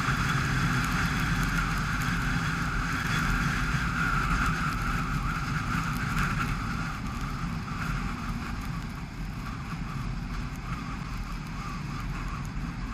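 Dacia Sandero Stepway driving on a wet road: a steady engine hum under a hiss of tyres on wet tarmac, easing off slightly about halfway through.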